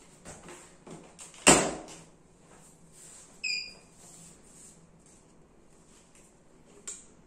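Switches clicking as the power supply and monitor are switched on, with one loud knock about a second and a half in among a few lighter clicks. About two seconds later the equipment gives a short electronic beep as it powers up, and there is one more small click near the end.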